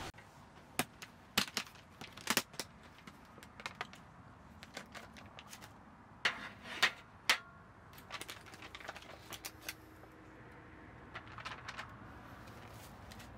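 Camping gear and food containers being handled: a scattered series of light clicks and knocks, with a louder cluster of three about six to seven seconds in.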